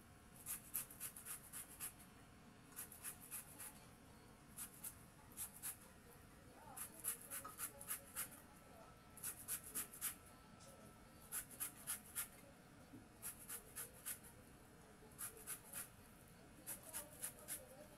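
Santol fruit being scraped against a metal hand grater, in short runs of quick rasping strokes about a second long with brief pauses between them.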